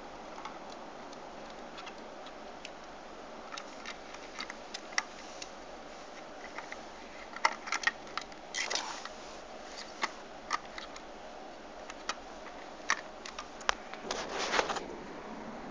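A mini 4WD RC car knocking and clicking as it drives over rough ground, with no motor whine showing. The light clicks come irregularly over a steady hiss, with a rattling cluster about halfway through and another near the end.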